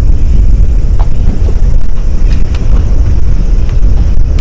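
Wind buffeting the microphone: a loud, unsteady rumble, with a few faint ticks.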